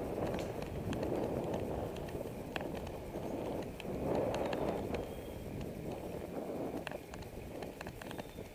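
Riding noise of a moving bicycle: a steady rumble of wind and tyres on pavement that swells and eases every second or two, with light, irregular rattling clicks from the bike.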